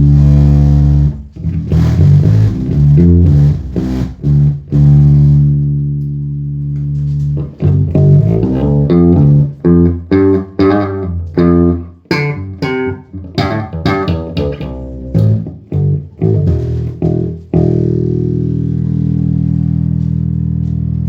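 Five-string Warwick Corvette SS electric bass with a new custom-built two-band EQ preamp, played through a 1x12 Eminence speaker. It opens with a few held notes, goes into a fast run of short, sharp-attacked notes about seven seconds in, and ends on one long ringing low note.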